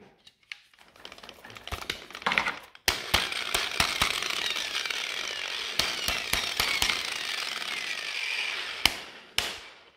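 Hitachi 115 mm angle grinder with a wire cup brush, its motor cutting in and out with crackles, then running steadily for about six seconds before cutting out suddenly, with one more brief burst near the end. The intermittent running, which comes and goes as the grinder is shaken, is the sign of loose wires at a block connector inside.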